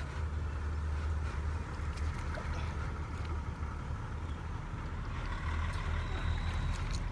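A steady low rumble with a light hiss above it, while a man wades chest-deep in a muddy river, moving the water around him.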